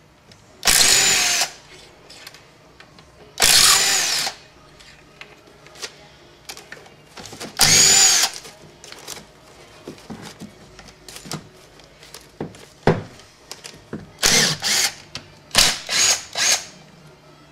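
Handheld power tool running in short bursts, three longer runs of under a second in the first half and several quicker ones near the end, with a whine that rises and falls in each run. It is backing out the bolts of a Honda Accord automatic transmission's back cover.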